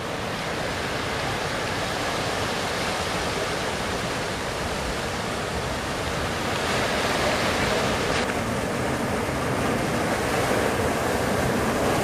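Steady rush of waves and choppy sea water, growing a little louder toward the end.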